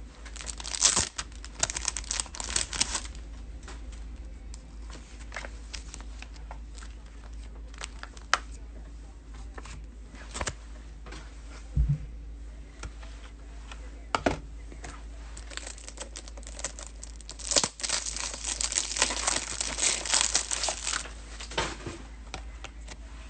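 Plastic card packaging being torn open and crinkled, in two long spells of crackling, one near the start and one in the last third, with scattered sharp clicks and taps in between as a box of trading cards is opened.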